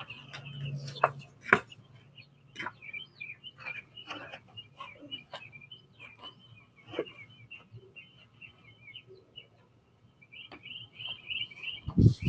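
Small birds chirping over and over, with scattered sharp clicks and ticks, heard through a doorbell camera's microphone. A loud low thump comes just before the end.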